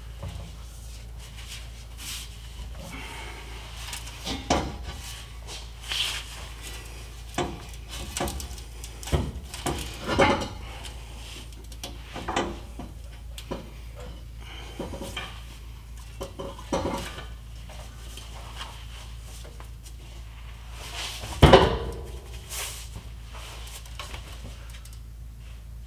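Scattered metallic clanks and knocks as the diesel particulate filter's exhaust flange is worked and pried off its studs under a Ford 6.7 Power Stroke truck, about a dozen irregular hits with the loudest a little past three quarters of the way in. A low steady hum runs underneath.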